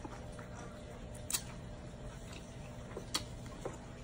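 Quiet eating sounds: three short, sharp clicks over a low, steady hum.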